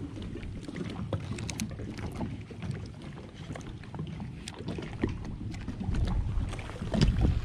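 Lake water lapping against a fishing boat's hull, with wind rumbling on the microphone and faint scattered ticks; a louder low thump comes near the end.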